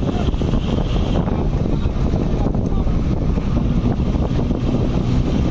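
Wind buffeting the microphone over the steady rumble of a moving vehicle riding along the road.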